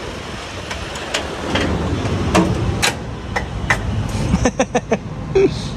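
Metal knocks on the self-starter motor of an old 4x4 jeep that will not start: the starter is being struck to get it to turn. A string of sharp irregular knocks, with a quick run of about five near the end, over a steady whir.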